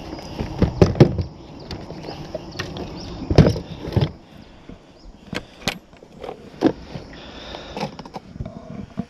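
Irregular knocks, clicks and clatter of fishing tackle being handled in a small boat, with gear bumping against the hull and tackle boxes. The loudest knocks come in the first few seconds.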